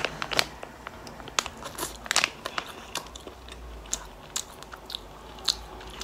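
A person biting off and chewing a strip of spicy, oily pressed-tofu snack, with irregular sharp clicks and smacks of the mouth.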